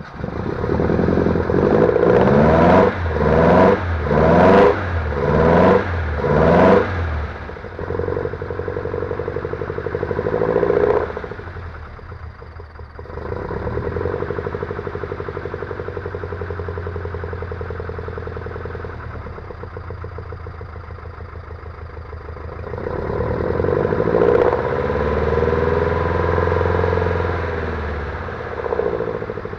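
Alfa Romeo GT 1300 Junior's twin-cam four-cylinder engine just started from cold. The throttle is blipped about six times in the first seven seconds, then it settles to a steady idle, with one slower rev up and back down near the end.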